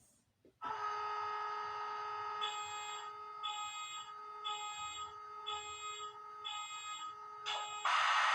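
Sound system of a Walthers EMD SD70ACe model locomotive: a steady electronic tone starts suddenly, joined a couple of seconds in by a higher beep that pulses about once a second. A loud hiss sets in near the end.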